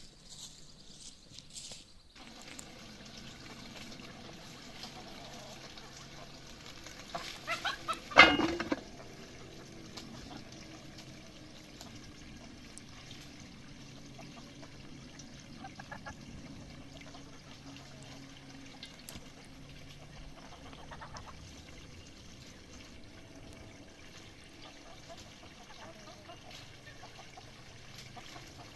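Water pouring and trickling, with a short clatter of knocks about eight seconds in.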